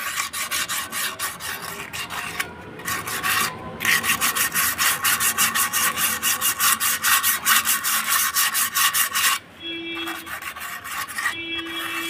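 Sandpaper scrubbed by hand in quick back-and-forth strokes against the inside of a scooter's steel rear brake drum, scouring off the rust that made the brake grab and squeal after the scooter stood in the rain. The scraping pauses briefly about two and a half seconds in and stops about nine and a half seconds in.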